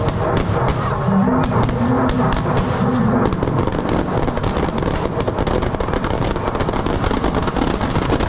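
Firecrackers packed into a burning Dussehra effigy going off in a fast, crackling string of pops and bangs that grows denser about three seconds in, over the steady hubbub of a large crowd.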